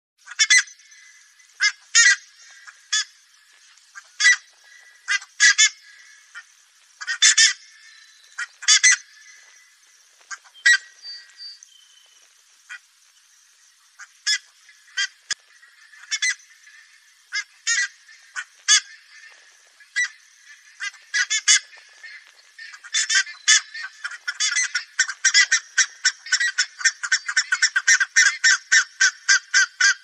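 Buff-necked ibis calls: short calls spaced a second or two apart, then, about three-quarters of the way in, breaking into a fast continuous run of calls, about five a second.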